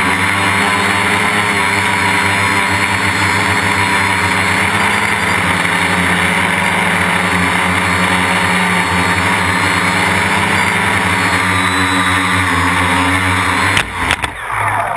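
Quadcopter's electric motors and propellers running steadily, heard close up from a camera mounted on the frame. Near the end come a few knocks as it sets down on the paving, and the motors spin down with a falling pitch.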